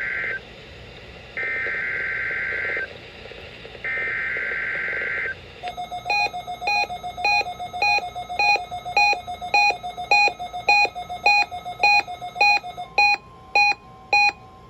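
Emergency Alert System SAME header on NOAA Weather Radio for a Required Weekly Test: harsh two-tone digital data bursts, three in all, the first already ending. Then a long run of rapid electronic alert beeps, about three a second, with a steady tone coming in near the end.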